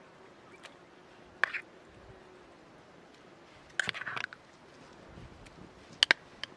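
Metal spoon scraping and knocking against a small tin can while tomato paste is scooped out into a cooking pot: one scrape about a second and a half in, a cluster of scrapes around four seconds, and two sharp clicks near six seconds. A fly buzzes faintly through the first half.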